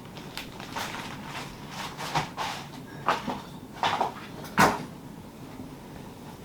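A string of light, irregular knocks and clatters of household objects being handled, about a dozen over several seconds, with the sharpest knock near the end.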